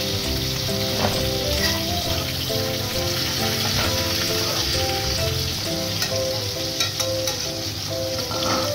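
Potato, green banana and papaya pieces sizzling in hot oil in an aluminium kadai, nearly done frying, turned with a metal spatula that clicks and scrapes against the pan now and then. Background music plays along.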